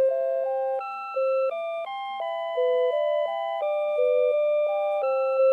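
Citizen CITE QHM3313-2 melody alarm clock playing one of its built-in tunes: plain electronic tones, a melody moving in steps over a lower second part.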